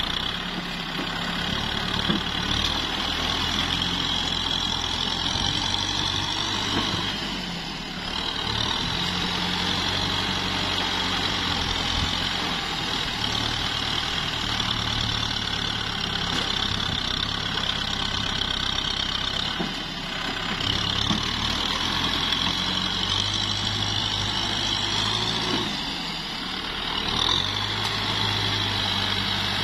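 Kubota M6040SU tractor's diesel engine running steadily under load, its note dipping briefly three times.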